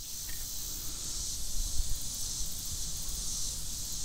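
Steady high hiss of insects in summer grass and trees, with a faint low rumble underneath.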